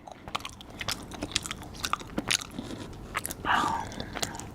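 Close-miked chewing and biting of food, a string of irregular wet mouth clicks, with a brief murmur from the eater about three and a half seconds in.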